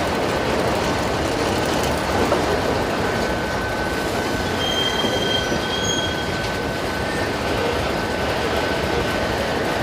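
Heavy freight train rolling on steel rails: a steady rumble of steel wheels with a faint high squeal of wheel on rail, and a sharper squeal about halfway through.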